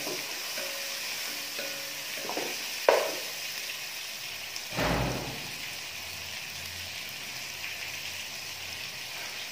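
Sliced onions and tomatoes frying in oil in a nonstick pot, a steady sizzle. A sharp knock comes about three seconds in, and a duller, deeper thump about two seconds later.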